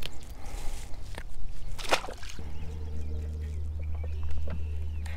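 Wind and water around a small fishing boat, with a couple of short knocks. About halfway through, a steady low hum sets in and runs on.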